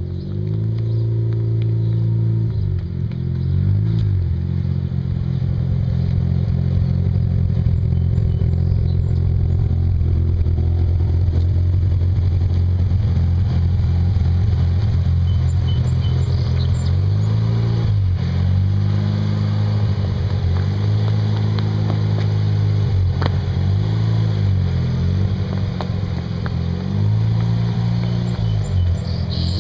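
1987 Mazda RX-7's two-rotor rotary engine running under way, its note rising and falling several times as the throttle is worked.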